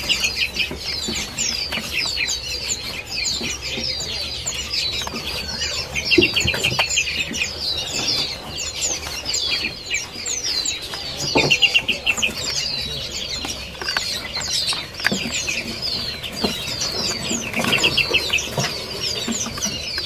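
Many caged songbirds chirping and calling at once, a dense chorus of short high falling chirps with a quick rapid trill breaking through every few seconds.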